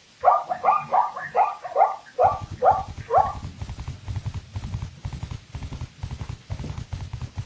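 Zebra calling: a rapid run of about eight short, barking calls, followed from about two seconds in by a fast, steady patter of low hoofbeats as it gallops.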